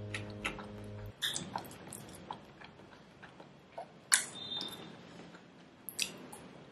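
Metal spoon and fork clinking and scraping against a ceramic bowl while scooping rice: scattered light clicks, the loudest clink about four seconds in ringing briefly.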